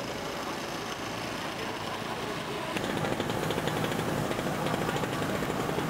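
Open-air market ambience: a steady hum of background noise and faint voices. About three seconds in it grows louder and takes on a fast, even throbbing.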